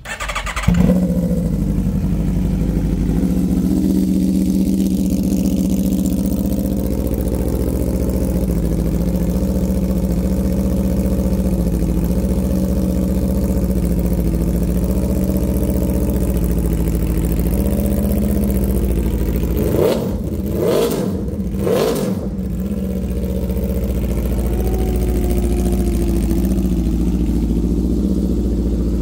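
2023 Aprilia RSV4 Factory's V4 engine, breathing through an SC-Project aftermarket exhaust, fires up within the first second on a cold start and settles into a steady idle. About twenty seconds in it is blipped three times in quick succession, then drops back to idle.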